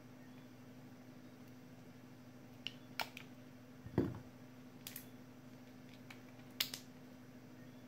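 Scattered small clicks and snips of side cutters and fingers working at the top of an 18650 Li-ion cell pulled from a laptop battery pack, with one louder knock about four seconds in as a tool is set down on the rubber mat.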